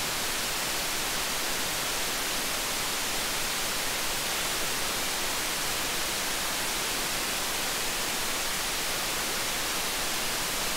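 Steady hiss, even and unchanging, with more energy in the highs: the amplified output noise of an MC4558 dual op amp in a gain-of-101 noise test circuit.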